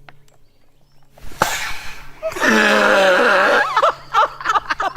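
Whoopee cushion sat on slowly: after a quiet start, a rush of air escapes about a second in, turning into a drawn-out buzzing rasp, followed by bursts of laughter.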